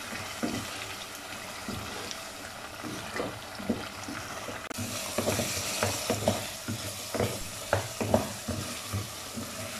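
Beef mince sizzling in oil in an aluminium pressure-cooker pot, being fried dry after its cooking water has boiled off, while a wooden spatula stirs it with repeated scrapes and knocks against the pot. The scrapes come thicker from about halfway.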